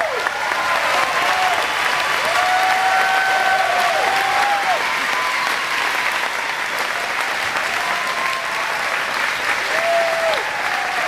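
Crowd applauding and cheering throughout, with several drawn-out whoops that rise and then fall over the clapping.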